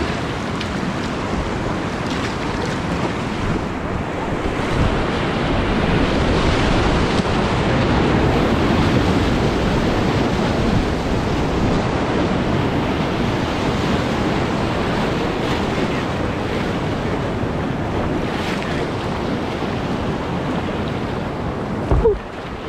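Whitewater rapids rushing around a kayak, heard from a camera on the boat, with wind buffeting the microphone. A brief loud thump comes near the end.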